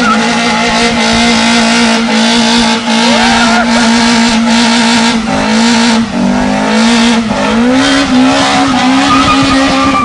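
Car engine held at high revs, a loud steady drone that wavers and climbs in pitch near the end, typical of a car being driven hard on a track.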